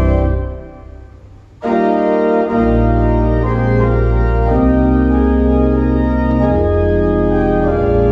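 Organ, played on manuals and pedals, sounding full held chords of a hymn arrangement. Near the start a chord is released and rings away in the room for about a second; then a new full chord comes in, with the pedal bass joining about a second later, and the chords move on without a break.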